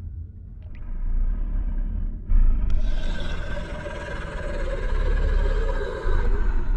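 Sound effect: a steady deep rumble, joined about two seconds in by a louder rushing roar that holds for about four seconds and then drops away.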